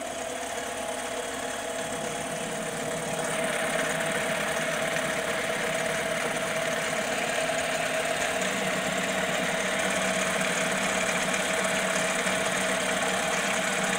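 Logan 12-inch lathe, converted to CNC, running under program with its chuck spinning a pulley blank: a steady mechanical whine from the drive. The sound gets louder and fuller about three seconds in, and a lower hum joins it about eight seconds in.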